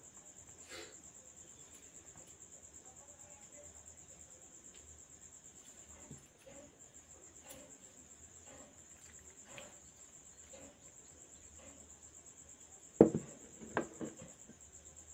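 Crickets trilling steadily, with faint clicks of hands handling food on a plate. Near the end come two knocks, a small glass bowl being set down on the table.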